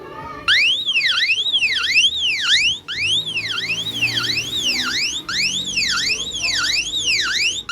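Emergency alert alarm tone: an electronic siren sweeping up and down in pitch about twice a second. It starts half a second in, has a brief break about three seconds in, and cuts off near the end.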